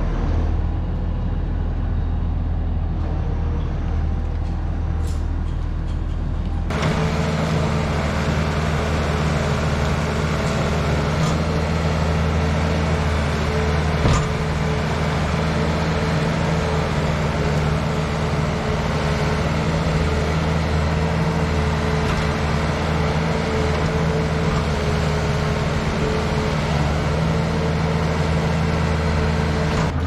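A skid-steer loader's diesel engine running steadily as it lifts manure out of a spreader. Before it, a different low, steady drone runs for about the first seven seconds and changes abruptly to the loader's engine.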